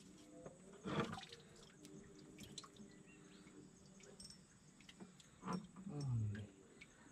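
Faint water splashing and lapping around a wooden boat as a hooked fish is fought on a bent spinning rod, with a knock about a second in and a short low falling sound near the end.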